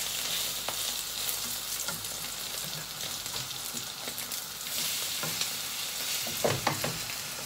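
Shrimp and butternut squash fritters (okoy) sizzling in hot oil in a nonstick frying pan, with a steady hiss, while a spatula scrapes and clicks against the pan to turn them over. There are two louder knocks near the end.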